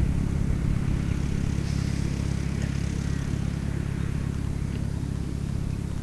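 Vintage Fordson Major tractor engine running steadily at a low, even speed, with no revving.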